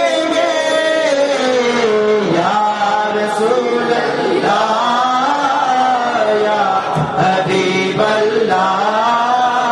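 A man singing a devotional chant in praise of the Prophet Muhammad solo into a microphone. He holds long notes that waver and glide slowly up and down, with short breaks between phrases.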